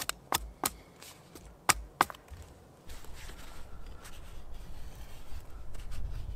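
Several sharp hatchet chops into green wood as a stick's point is shaped, within the first two seconds. Then a knife shaving a stick, faint scraping over a low rustle.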